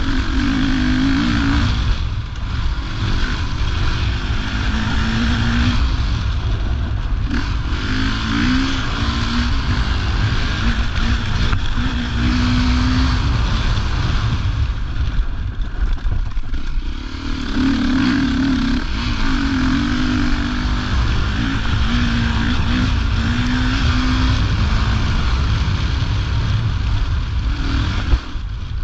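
Rally motorcycle's engine heard from on board, revving up and easing off as the rider accelerates and shifts gear along a dirt track. It backs off briefly a few times, longest about fifteen seconds in.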